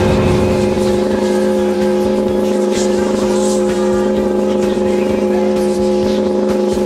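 Two-stroke chainsaw engine running at high revs, loud and holding a steady pitch.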